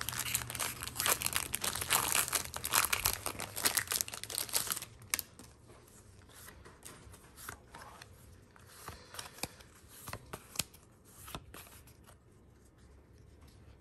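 Pokémon TCG Brilliant Stars booster pack wrapper being torn open and crinkled for about the first five seconds. Then quieter, scattered clicks and slides as the cards are pulled out and handled.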